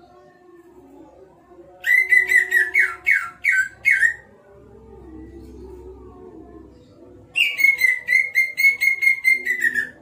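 Caged green leafbird (cucak ijo) singing loud bursts of rapid whistled notes, twice. The first burst, about two seconds in, is a run of slurred notes. The second, near the end, is a quicker, even series of notes.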